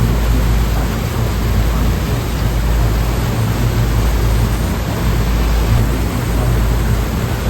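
Sea waves, a steady rushing noise with a deep low rumble and slight swells in level.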